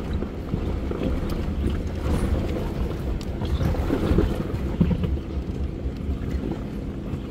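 Jeep Wrangler engine running at crawling speed over loose rock, a steady low rumble with wind buffeting the microphone and a few faint knocks through the middle.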